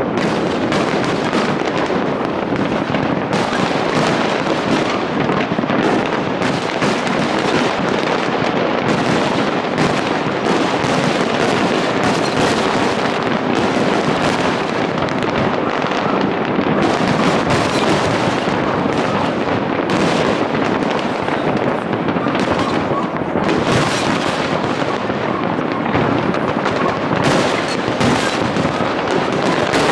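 Large fireworks display: a dense, continuous barrage of shell bursts and crackling, the explosions running together with no gaps between them.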